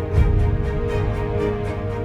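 Outro music with a steady beat.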